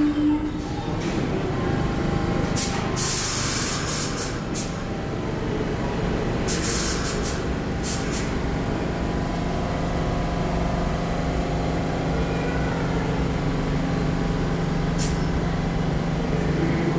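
R62A subway train standing in an underground station with a steady low electrical hum, broken several times by short hisses of released air.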